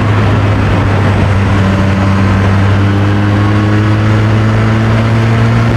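Motorcycle engine running steadily under way, its pitch creeping slowly upward as the revs rise a little, over a steady rush of noise.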